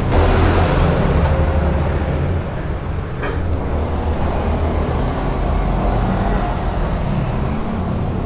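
Yamaha WR155R's single-cylinder engine idling with a steady low rumble, with two sharp clicks about one and three seconds in.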